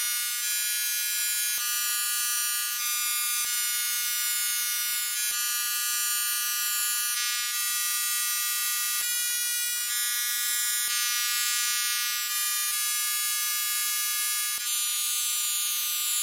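Synthetic high-pitched tinnitus-relief tones: many steady high tones sound together, with a repeating sweeping shimmer on top. The mix of tones changes every two seconds or so, with a faint click at each change.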